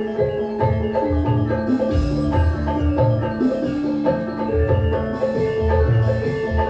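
Javanese gamelan music: bronze metallophones play a melody of ringing struck notes over low drum strokes, as in a sound-system check.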